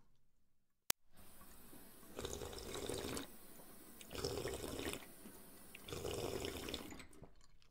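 Underwater-style water ambience: a liquid, sloshing sound that swells and fades about every two seconds, with a single sharp click about a second in.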